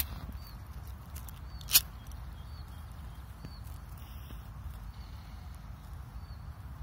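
Disposable lighter's flint wheel struck to light a firecracker fuse: two sharp clicks almost two seconds apart, with a few fainter ticks.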